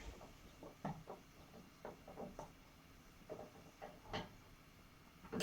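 A few light, scattered clicks and taps of screws and parts being handled while a screw for the exercise bike's seat is lined up with its hole, the sharpest near the end.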